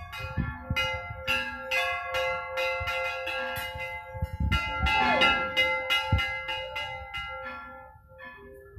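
Several temple bells rung repeatedly by hand, about three strikes a second, their ringing tones at different pitches overlapping; the strikes thin out after about six seconds and the ringing fades near the end.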